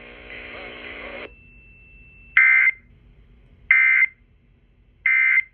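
Emergency Alert System SAME data tones: three short warbling digital bursts, evenly spaced about 1.3 s apart, the end-of-message code that closes the alert. A steady buzz before them cuts off about a second in.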